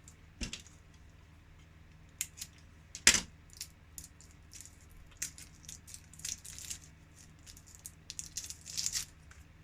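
Small batteries and a plastic glucose meter being handled: a series of light clicks and clinks, the loudest about three seconds in, with a busier run of them in the second half.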